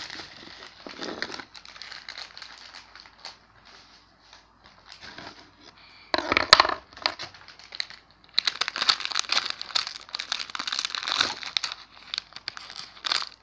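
Plastic instant-noodle packet crinkling as it is handled and opened, in spells: a short loud crackle about six seconds in, then a longer run of crinkling from about eight seconds to the end.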